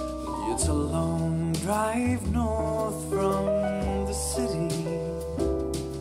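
A pop song with piano, bass and a singing voice, played back through Edifier R1700BT bookshelf speakers and picked up by a microphone in the room.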